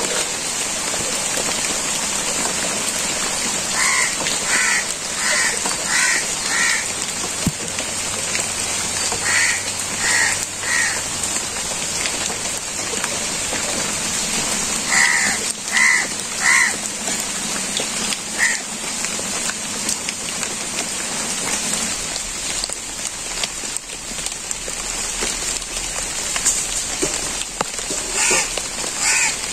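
Steady rain falling, with a crow cawing in short runs of three to five caws several times.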